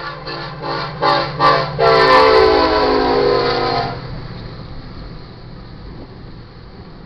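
EMD SD70ACe locomotive's air horn sounding a quick run of about five short toots, then one long blast that drops slightly in pitch and cuts off about four seconds in. The train's low rumble carries on underneath.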